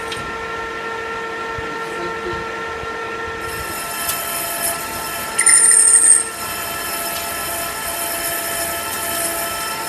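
Metal lathe running with a steady gear whine while cutting a cold-rolled steel workpiece; about five and a half seconds in, a loud high-pitched squeal lasts just under a second.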